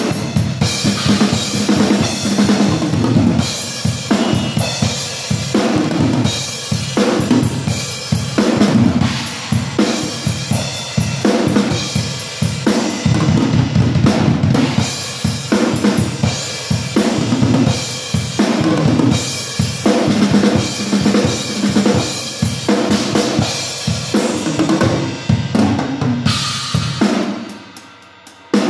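Acoustic drum kit played alone in a rhythmic groove, with bass drum, snare and cymbals, as the drum track for a song. Near the end the beat drops away to a quieter ringing before one last hit.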